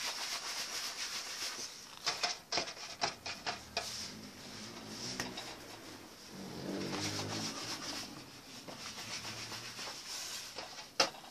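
Rubbing and scraping with a few light knocks as dough pieces are handled on a greased metal baking sheet.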